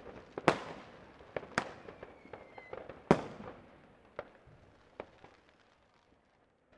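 New Year's fireworks and firecrackers going off: scattered sharp bangs with echoing tails, the loudest about three seconds in, preceded by a faint falling whistle. After that, fewer and fainter bangs.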